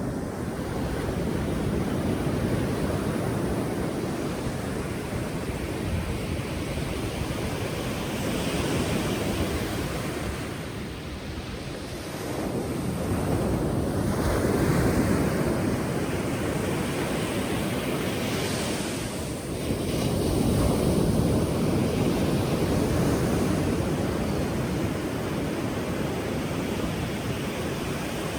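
Ocean surf: waves breaking and washing in, the rush swelling and ebbing several times, with some wind on the microphone.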